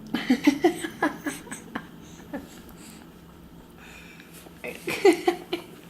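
A baby vocalizing in two runs of short, clipped babbling and fussing sounds, the first lasting about two seconds and the second starting near the fifth second.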